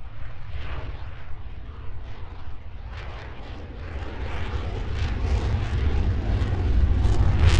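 Fairchild Republic A-10 Thunderbolt II's twin TF34 turbofan engines, a deep rumble with a crackling edge that grows steadily louder as the jet approaches.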